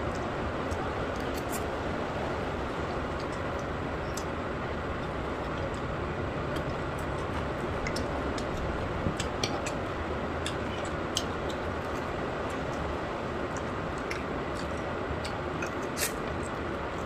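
Eating sounds: scattered short clicks and smacks at irregular moments, over steady background noise.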